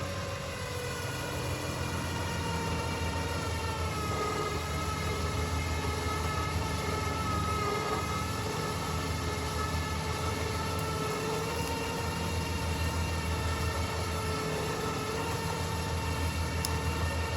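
A 4500 lb electric winch on a Honda Pioneer 1000-5 whining steadily as it reels in synthetic rope under the load of a log, its pitch sagging a little about four seconds in, over a low steady hum from the machine.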